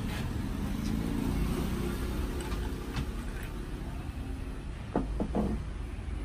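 Steady low rumble of road traffic, with a few light clinks about five seconds in as milk is poured from a plastic measuring jug over ice in a plastic cup.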